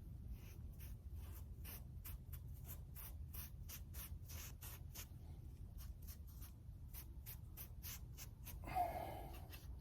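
A foam brush scratching and swishing end-grain sealer onto rough-sawn Southern Yellow Pine boards in quick repeated strokes, several a second. Near the end there is a brief vocal sound.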